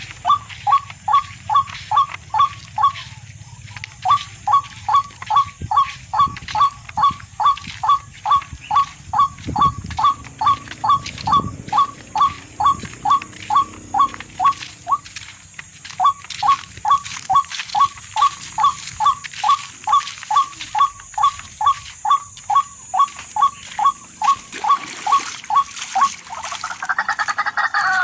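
A short chirping call repeated evenly about three to four times a second, pausing briefly twice. A different, fuller call begins near the end.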